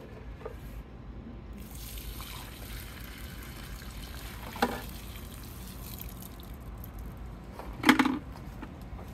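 Dirty extraction water pouring out of a Bissell Spot Clean portable carpet cleaner's recovery tank and splashing onto gravel, a steady gush starting about a second and a half in. A short knock near the middle, and a louder plastic clatter near the end as the emptied tank is handled.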